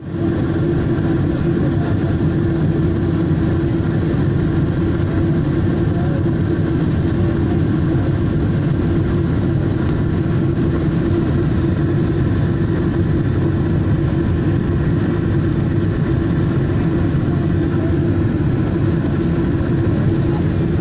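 Steady cabin noise of a jet airliner in cruise, the drone of the engines and airflow heard from inside the cabin, with a steady low hum running through it.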